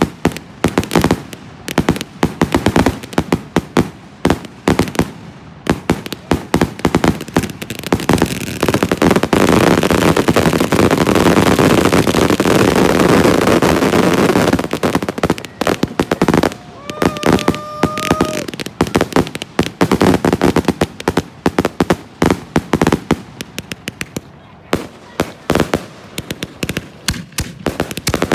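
Consumer fireworks cakes firing rapid salutes, a fast run of sharp loud bangs. About a third of the way in, the bangs merge into a dense, almost continuous barrage for some six seconds, then thin back out to rapid separate reports.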